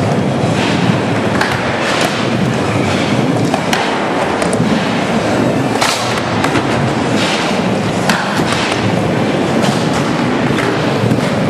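Skateboard wheels rolling on rough pavement in a steady loud rumble, broken by repeated sharp clacks and knocks of the board.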